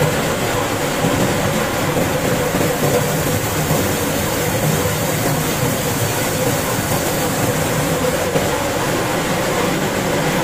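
Wheat flour roller mill running: a loud, steady mechanical noise with a constant drone, as grain feeds between the rolls and ground stock pours down the chute.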